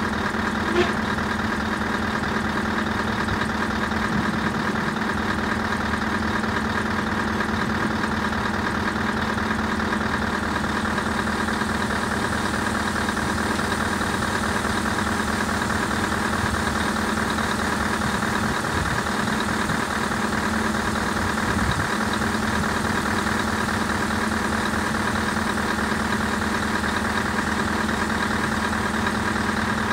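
Scania 143 500 truck's V8 diesel engine idling steadily.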